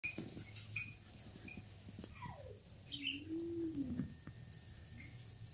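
Two-month-old Samoyed puppy whining: a short call falling in pitch about two seconds in, then a longer whine about a second long that rises and falls in pitch.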